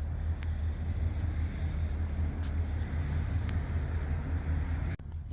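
Steady low rumble of street traffic, with a few faint clicks; it cuts off abruptly near the end.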